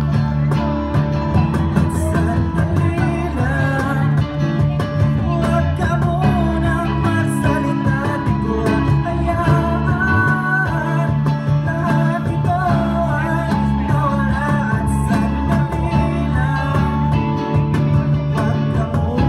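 Live acoustic band playing a song: a man singing over acoustic guitar and keyboard, with sustained low notes underneath.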